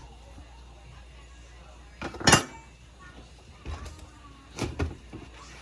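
Kitchenware clinking and knocking: one sharp clink about two seconds in, then a few softer knocks, over a low steady hum.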